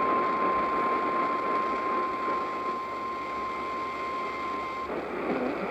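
NOAA Weather Radio's 1050 Hz warning alarm tone, a steady single-pitch tone over radio static, cutting off suddenly about five seconds in. It is the signal that a new weather warning, here a severe thunderstorm warning, is about to be read.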